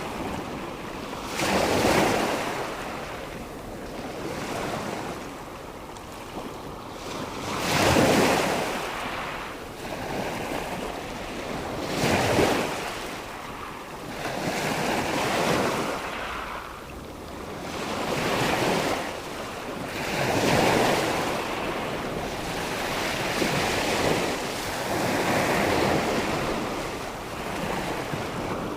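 Sea waves breaking on the shore: a steady rush of surf that swells and fades with each wave, every four to six seconds, the strongest breakers at about two and eight seconds in.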